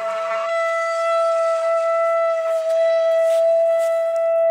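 Shofar blown in one long, steady note at a single pitch.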